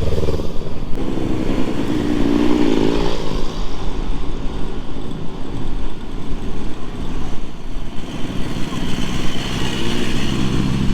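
Motorcycle engine running at low revs, with a brief rise in revs about two seconds in and again near the end.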